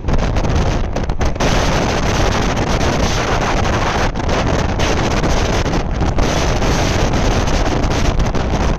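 Wind buffeting the microphone over the steady running noise of a moving passenger train.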